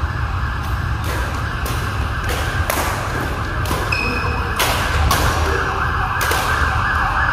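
Badminton play in a hall: sharp smacks of rackets striking shuttlecocks, about two a second, with a brief shoe squeak on the court floor about four seconds in, over a steady background hiss.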